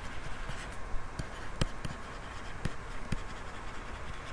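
Digital pen writing handwriting on a tablet screen: faint scratching with a dozen or so light, irregular taps.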